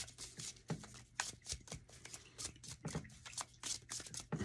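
A tarot deck being shuffled by hand: an irregular run of soft card slaps and flicks, a few a second.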